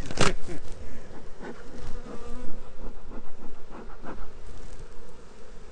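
Honey bees buzzing around an opened hive, with single bees droning past close by, their pitch wavering as they come and go. A short sharp knock about a quarter second in.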